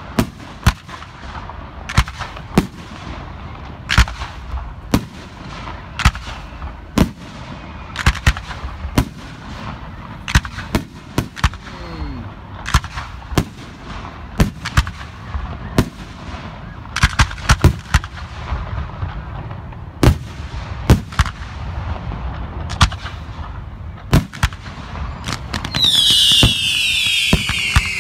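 Fireworks display: a run of sharp bangs from bursting aerial shells, about one or two a second, over a low rumble. Near the end several whistling fireworks go off together, their shrill whistles falling in pitch.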